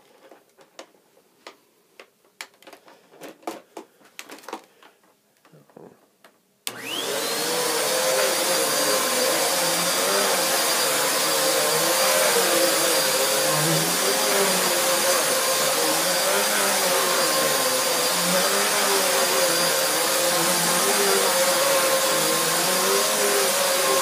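Hoover Nano Lite 12-amp upright vacuum cleaner, with a few seconds of handling clicks and knocks first. About seven seconds in it is switched on: the motor spins up with a rising whine, then runs steadily and loudly while pushed over carpet.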